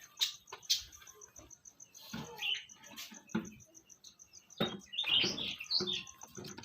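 Caged birds chirping in short, scattered calls, mixed with small knocks and rustles, busiest in the second half.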